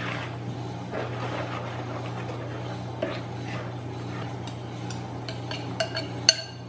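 Melted chocolate and butter being scraped out of a bowl with a utensil into a glass mixing bowl of beaten sugar and eggs. The utensil clinks against the glass several times near the end, over a steady low hum.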